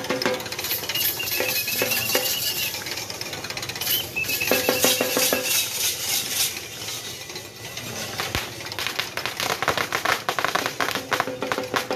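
Fast, continuous clatter and rattling from a yoked pair of bulls running the circular sand track round a wheel rig, hooves and harness working. A few short, high held notes sound over it near the start and about five seconds in.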